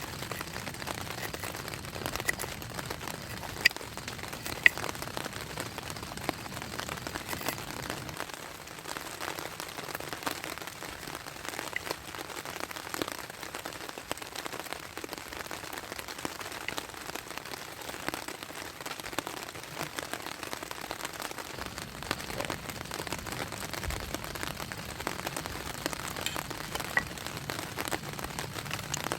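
Steady rain falling on surfaces, with scattered sharp ticks of single drops.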